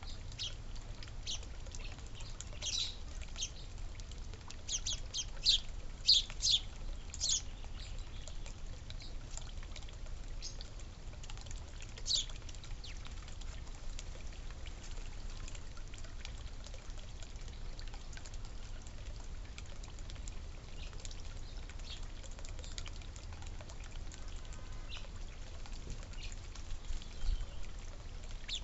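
Small songbirds giving short, high chirps: a busy run of quick calls in the first several seconds, another loud chirp about twelve seconds in, then scattered single calls, over a steady low hum.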